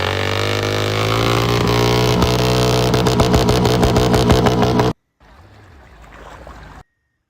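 Royal Enfield Continental GT 650's parallel-twin engine running just after starting, its exhaust note steady and slightly rising. From about two seconds in it has a rapid, irregular crackle. The sound cuts off abruptly about five seconds in, followed by a quieter stretch of engine sound and then silence near the end.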